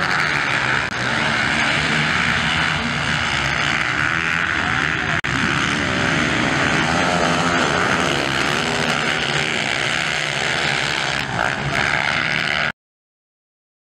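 A pack of motocross bikes racing together, many engines revving at once and blending into one dense sound. It breaks off for an instant about five seconds in and cuts out suddenly about a second before the end.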